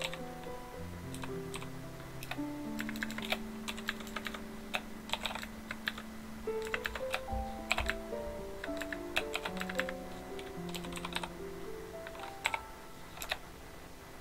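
Computer keyboard typing: irregular runs of key clicks with short pauses between them. Background music with sustained melodic notes plays underneath.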